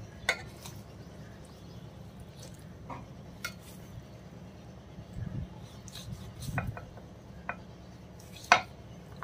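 Kitchen knife scoring a raw leg of mutton in a stainless steel bowl, the blade clinking against the steel now and then: a handful of scattered sharp clinks, the loudest near the end, over a faint low hum.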